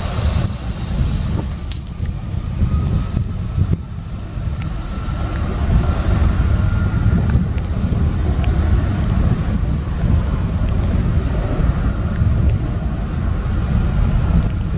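Boeing 757-200 jet engines at takeoff thrust: a loud, deep, steady rumble, with a faint whine that rises slightly in pitch a few seconds in.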